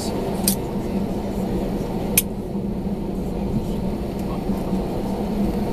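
Cabin noise of an Airbus A321-211 taxiing after landing: the CFM56 engines at idle and the airflow give a steady low hum. Two sharp clicks, about half a second and about two seconds in.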